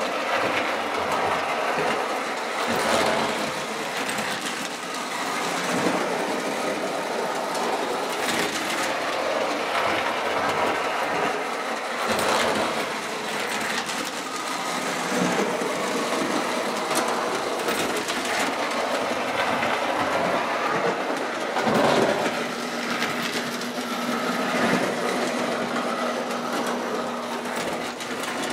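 O-gauge electric toy train running on three-rail track: the motor whirs and the wheels clatter along the rails, with irregular louder clicks and clunks. The running is uneven, herky-jerky, which the owner puts down to a bent pin on a drive wheel binding the side rods. A steady hum joins in near the end.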